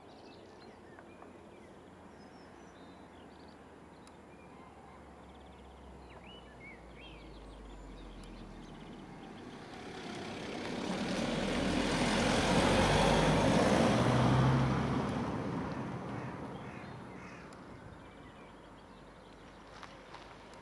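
A vehicle passing unseen: a rumble that swells up about halfway through and fades away again a few seconds later. Small birds chirp and call throughout.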